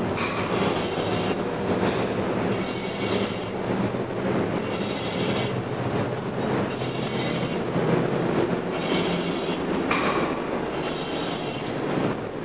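Steady machinery noise in a wastewater treatment plant basement, with a hiss that swells for about a second roughly every two seconds.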